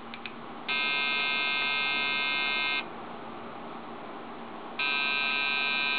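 Dell XPS 400 motherboard's speaker sounding long beeps on power-up, each about two seconds long with a two-second gap: a POST error beep code from a board that will not give video. A steady hum runs underneath, and a few small clicks come right at the start.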